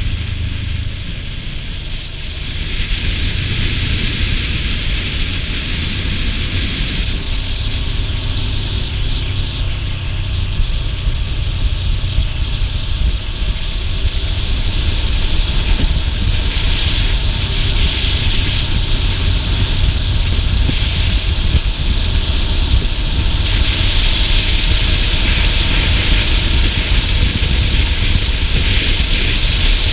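Wind rushing and buffeting over the microphone of a riding motorcycle, with the motorcycle's engine running steadily underneath. Gets louder about three seconds in as the bike picks up speed.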